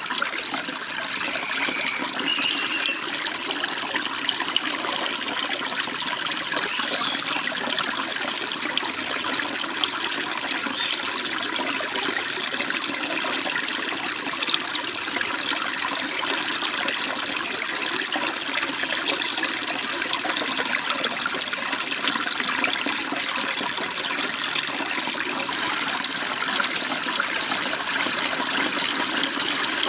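Mountain stream flowing over small waterfalls and rocks: a steady, even rush of water with a babbling edge.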